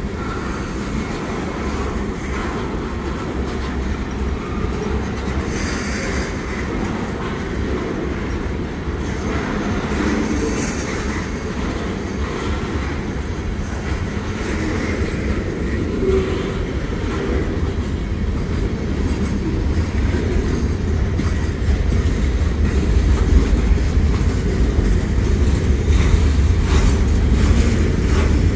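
Freight train rolling past: a steady low rumble with wheel clatter on the rails, growing louder in the second half.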